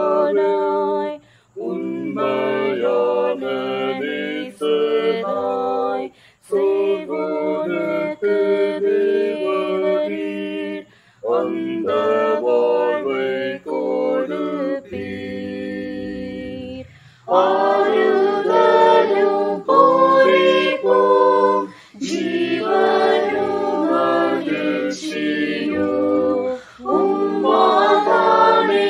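Mixed choir of men's, women's and children's voices singing a Tamil hymn unaccompanied, in phrases broken by short breaths; the singing grows louder about halfway through.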